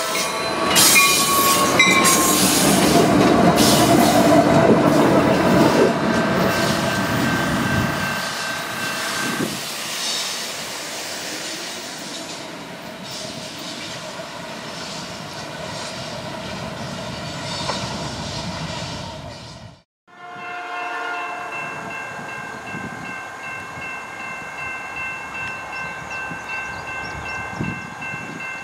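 Diesel locomotives of a CSX freight passing close: a loud rumble with wheel clatter for about eight seconds, then a quieter run-by. After a cut about twenty seconds in, a train horn sounds briefly and a railroad crossing bell rings steadily.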